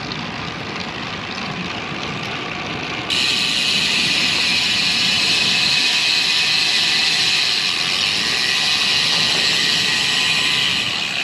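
Wind and road noise while riding a road bike: a steady rushing hiss that turns suddenly louder and brighter about three seconds in and stays so until near the end.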